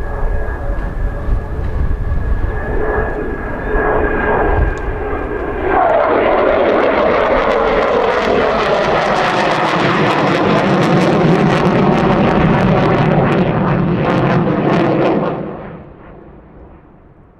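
F-15 fighter jet's twin turbofan engines. First a steady whine over a low rumble, then about six seconds in a sudden loud roar with crackle, its pitch falling as the jet passes. The roar drops away sharply near the end.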